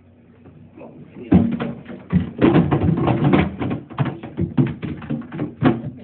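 Items knocked and shuffled around in a refrigerator's lower drawer: a quick run of knocks, taps and clatters that starts about a second in.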